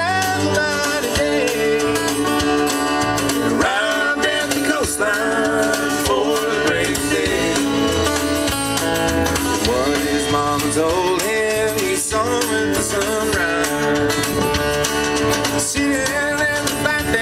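Live acoustic band playing: two acoustic guitars and an upright double bass with a drum kit, and a singing voice over them.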